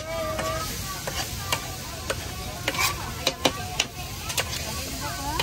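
Food cooking on a hot griddle at a street stall: a steady sizzle with irregular sharp clacks of a metal spatula stirring and scraping.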